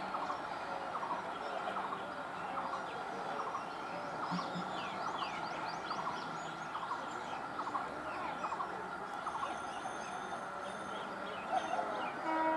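Birds calling, one repeating a short call about every two-thirds of a second with higher chirps in between, over a faint steady hum of trains still some way off. Near the end a short electric train horn sounds.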